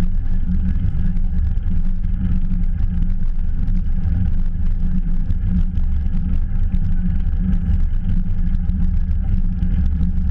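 Steady wind rumble on a GoPro action camera's microphone during a fast bicycle ride, with rolling noise from the bike.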